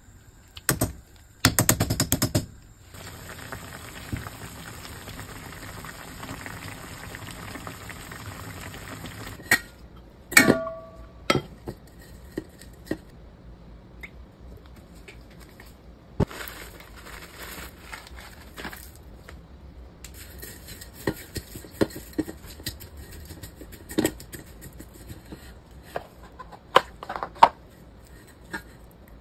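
Kitchen handling sounds. Early on there is a quick run of rapid clicks and then a steady hiss. After that a metal spoon clinks once with a brief ring and then taps and scrapes in a stainless steel bowl as rice is mixed.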